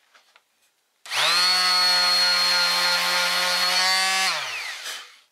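Electric orbital sander switched on about a second in, its motor whining up to speed, running steadily for about three seconds, then switched off and winding down. It is used to sand smooth a nail hole in a pine board filled with wood wax.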